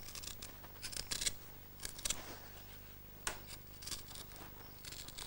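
A hand citrus zester scraping strips of peel off a lime, a series of short, faint scraping strokes about a second apart.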